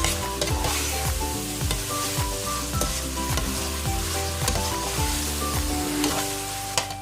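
Bacon, garlic, tomato, ginger and bell pepper sizzling in a pot as they are stirred, under background music with a steady beat.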